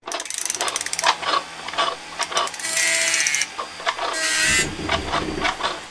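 Mechanical sound effects: a fast run of ratcheting clicks, then scattered clacks, a whir about three seconds in and a short hiss a second later.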